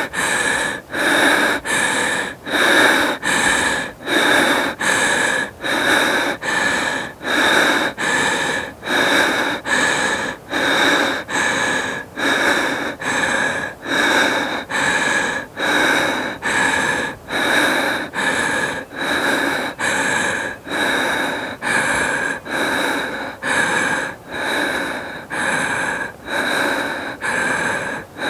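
A woman breathing heavily in and out, about one breath a second in an even rhythm: out of breath after exercise.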